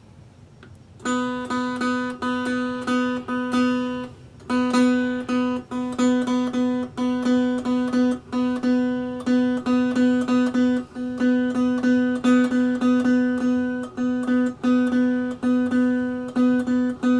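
Single-string cigar box diddley bow plucked over and over on the same open note, with no frets to change the pitch. The plucks start about a second in, come two or three a second, and pause briefly about four seconds in.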